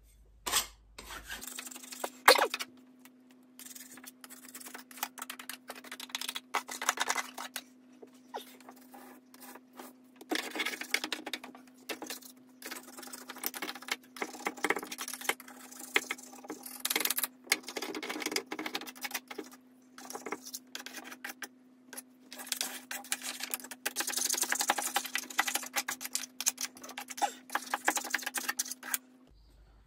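Wallpaper being scraped off a plaster wall with a hand scraper: dense, irregular scratching and rasping strokes, over a steady low hum that starts about a second in and stops just before the end.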